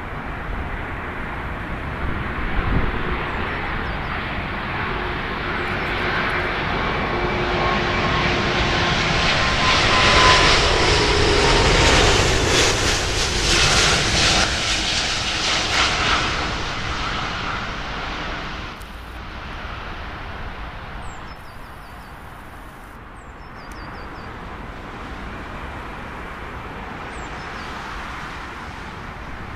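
Airbus A340-600's four Rolls-Royce Trent 500 turbofans on final approach, swelling to a loud peak as the airliner passes low overhead and then fading away. A thin engine whine runs under the jet noise and falls slightly in pitch as it goes by.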